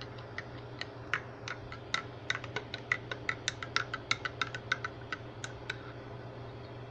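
A spoon stirring chocolate milk in a cup, clinking irregularly against the sides several times a second, then stopping near the end. A steady low hum runs underneath.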